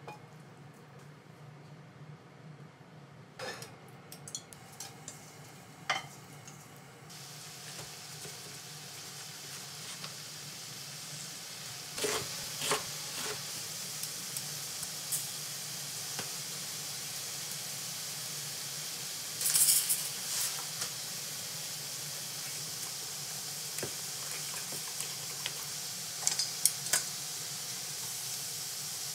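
Chopsticks and utensils clicking and clinking against a stainless steel bowl and a glass container. About seven seconds in, a steady high sizzle of burdock frying in a pan starts and runs on. The loudest moment is a cluster of clatter about twenty seconds in.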